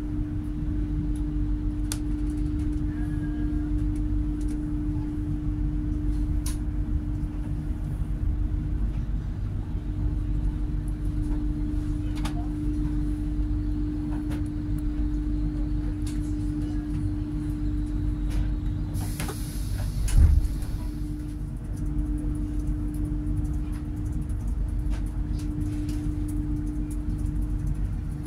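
Inside the passenger cabin of a GWR Class 800/3 bi-mode train at speed on a non-electrified line, running on its underfloor diesel engines: a steady low rumble with a constant hum. About twenty seconds in there is a brief rush of hiss and a single thump.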